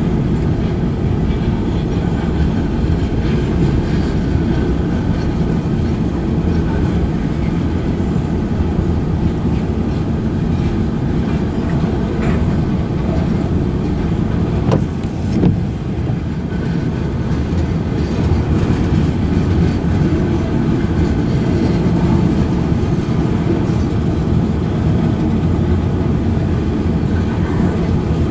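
Manifest freight train cars rolling past a grade crossing: a steady noise of steel wheels on rail that does not let up, with a single sharp knock about halfway through.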